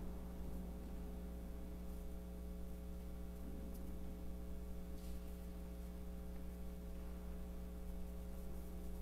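Steady low electrical mains hum with a stack of even overtones and a faint hiss under it, with two faint ticks in the middle.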